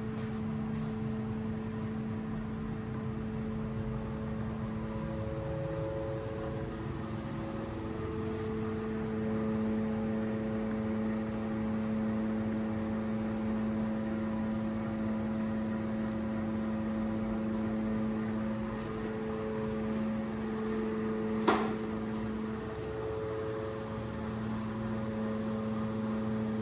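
A steady hum made of several tones that drop out and come back now and then, with one sharp click about twenty-one seconds in.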